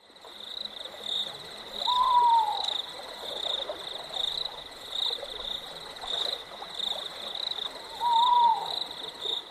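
Night-time nature ambience: insects chirring steadily in a high pulsing drone, with an animal call that rises briefly and then falls in pitch, heard twice, about two seconds in and near the end.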